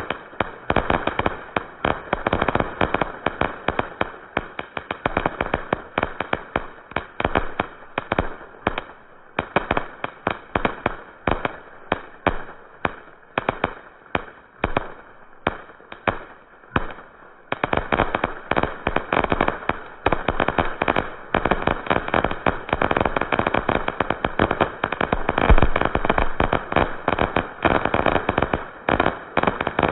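Fireworks barrage: a rapid, continuous string of shell bursts, several bangs a second, thinning somewhat in the middle and building dense again after about 17 seconds, with one especially loud bang near the end.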